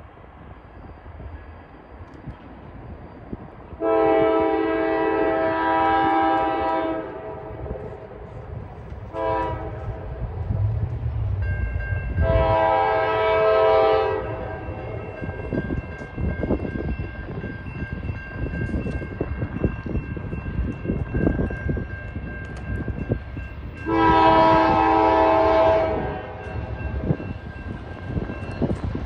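Norfolk Southern diesel locomotive's horn sounding for a grade crossing: a long blast, a short one, another long blast, and after a pause a final long blast. Under it the low rumble of the approaching train grows.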